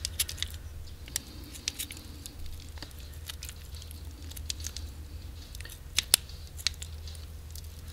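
Kitchen shears snipping through a raw chicken wing, cutting the meat and connective tissue away from the bone: a series of small, irregular snips and clicks, the two loudest close together about six seconds in, over a low steady hum.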